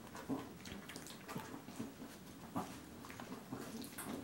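Six-week-old Bichon Frise puppies nursing: irregular wet suckling and smacking noises.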